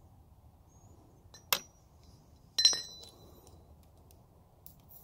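Two sharp metallic clinks about a second apart, the second louder and ringing briefly, as small metal tools or parts are handled and set down.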